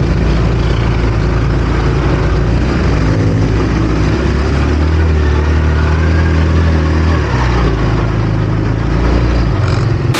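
ATV engine running under throttle on a hard trail climb, its pitch rising and falling as it revs.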